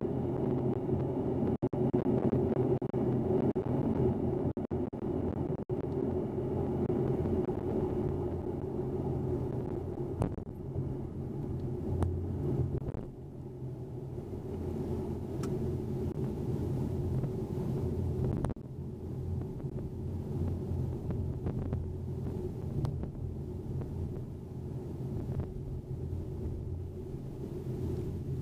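Cabin sound of a 2010 Acura TSX with a K24 2.4-litre four-cylinder and CT-Engineering Icebox intake, driving: a steady engine drone with road rumble. It grows quieter about 13 seconds in as the car slows.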